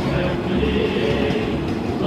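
Shonan-liveried electric train running through the station, a steady rumble with some rail clatter, with a sung melody from music faintly underneath.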